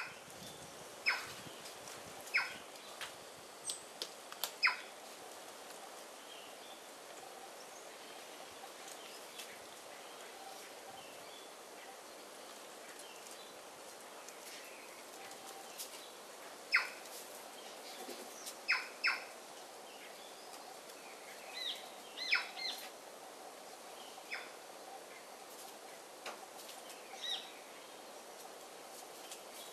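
Wild birds at a forest feeding table giving short, sharp calls, singly and in quick pairs. The calls come in a cluster at the start, pause for about ten seconds, then return, over a steady faint background.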